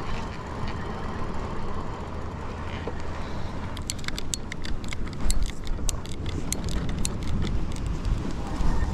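Wind buffeting the microphone as a low, steady rumble while on the move, with a run of sharp clicks and rattles from about four seconds in.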